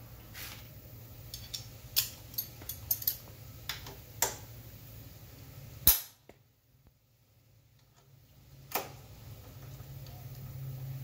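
Metal hand tools, hex keys and a socket extension, clinking and clacking against bolts and the motorcycle frame in irregular sharp clicks, with one loud clack about six seconds in and a single click near the end.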